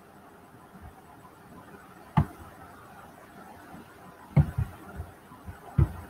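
A few short knocks against faint background hiss: one about two seconds in, a couple about four and a half seconds in, and one more near the end.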